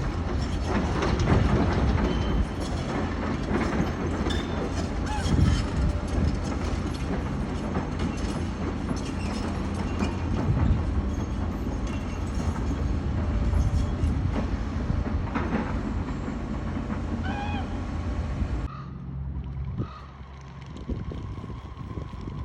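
A loud, steady low rumble of outdoor background noise with a few short, high bird-like calls over it. About nineteen seconds in it drops abruptly to a quieter background.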